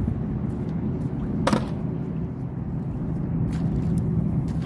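A motorboat engine running steadily out on the water, a low drone, with one sharp knock about a second and a half in.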